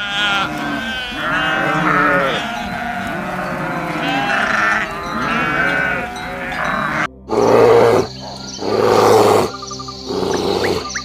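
Several sheep bleating, overlapping calls at different pitches. About seven seconds in the sound cuts, and three loud, harsh animal calls follow, each under a second long, over a steady high tone.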